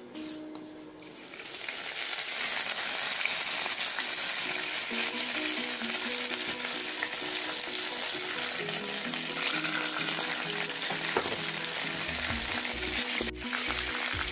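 Hot oil in a kadai sizzling loudly as dry red chillies, curry leaves and dal are tipped into it for a tempering. The sizzle jumps up about a second and a half in and stays steady, with a brief dip near the end.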